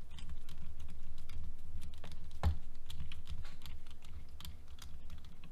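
Driver tightening a nut onto the plastic steering assembly of a Traxxas Slash RC truck kit: quick, irregular clicking and rattling of tool and plastic parts.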